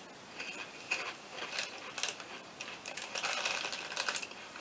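Close-up chewing of Doritos 3D Crunch puffed corn chips: irregular crisp crackles, thickest about three seconds in.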